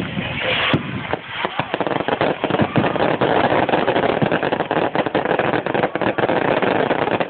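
Aerial fireworks going off in a rapid run of pops and crackles, growing denser from about two seconds in.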